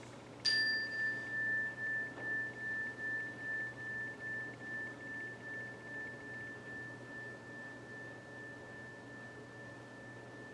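A hand-held chime struck once, about half a second in: a single clear high tone that rings on and slowly fades over about ten seconds, with a gentle pulsing as it dies away.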